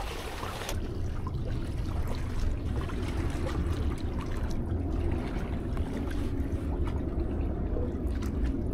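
Seawater lapping and sloshing among concrete tetrapods, a steady low wash with a few faint ticks.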